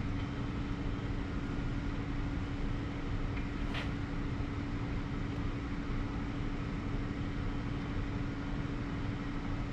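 Steady low background hum of a workshop, one even tone under a hiss, with a single light click about four seconds in as small engine parts are handled.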